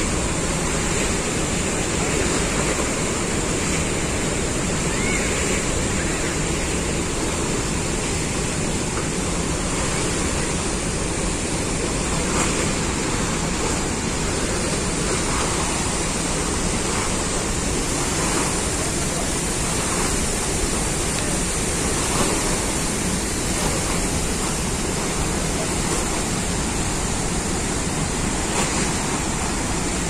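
Water released through the open sluice gates of a masonry dam, rushing and churning as whitewater in the river below, a steady unbroken noise.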